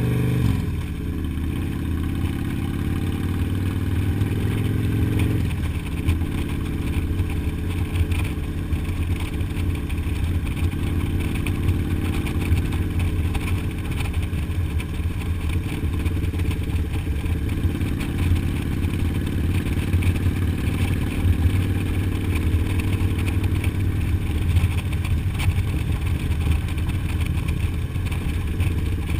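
Touring motorcycle's engine running steadily at road speed, heard from the rider's seat. The engine note changes about five seconds in.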